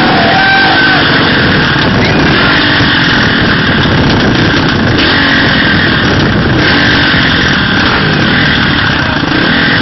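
Off-road motorcycle engine revving up and down as the dirt bike is forced through a flooded, muddy ford, under a loud, steady rushing noise.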